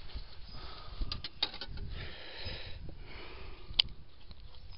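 Handling noises from holding a freshly caught bullhead: a few light clicks and rustles about a second in, and one sharper click near the end.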